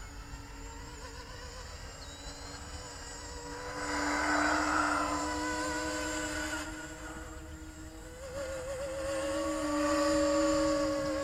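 Electric motors and propellers of an E-flite Convergence VTOL RC plane buzzing in forward flight, the whine wavering slightly in pitch and swelling louder twice, about four seconds in and near ten seconds.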